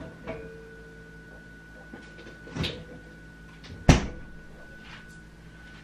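A faint steady whine of unknown origin, which is not the refrigerator, with a lower tone under it that stops about two-thirds of the way through. Over it come a few knocks, the loudest a sharp thump about four seconds in.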